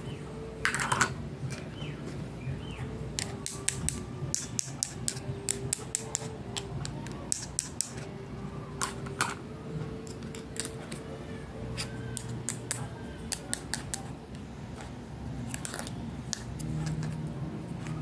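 Small plastic toy kitchen utensils clicking and tapping against each other as they are handled: a run of light, irregular clicks with a couple of louder knocks, about a second in and again near nine seconds, over a faint steady hum.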